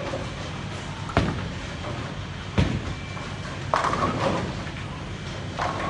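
Bowling alley ambience: a steady low rumble of balls rolling and lane machinery. Two sharp knocks come about a second and two and a half seconds in, and a longer clatter near the four-second mark.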